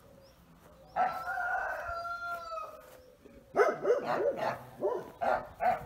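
A rooster crows once, a drawn-out call of about two seconds that sags slightly in pitch, starting about a second in. A dog follows with a quick run of barks.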